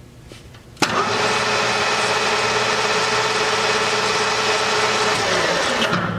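DoAll Romi 13-5 engine lathe spindle switched on with a click about a second in, running loud and steady with a whine from the headstock. Near the end it is switched off and winds down.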